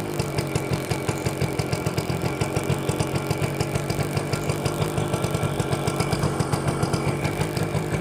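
Suzuki AX100's 100cc single-cylinder two-stroke engine idling just after a kick start, a steady rapid popping beat from the exhaust.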